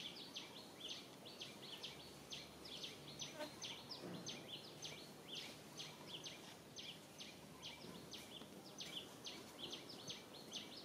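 Small birds chirping, several short high chirps a second, each falling a little in pitch, over a faint outdoor background.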